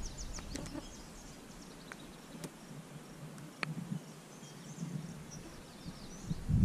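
Small birds chirping in short, high calls over a faint steady outdoor hiss, with a few thin clicks, the clearest a little past the middle.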